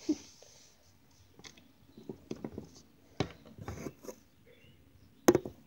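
Slime being twisted and squished by hand: scattered soft, sticky clicks and squelches, with a sharper click near the end.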